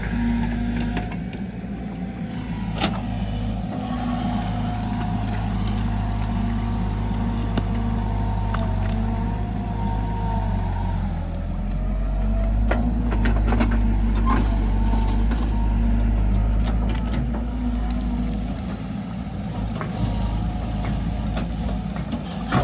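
Tracked excavator's diesel engine running steadily under work, with a higher whine that wavers up and down and a few sharp knocks as the bucket works the canal mud.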